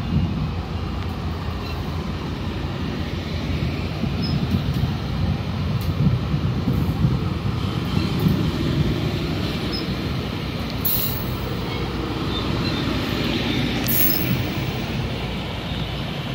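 GO Transit commuter train pulling out of the station, a steady rumble of wheels on rail, with two sharp metallic clicks late on.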